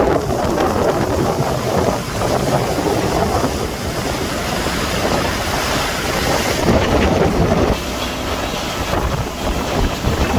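Wind buffeting the microphone aboard a moving cruise boat: a steady, loud rushing.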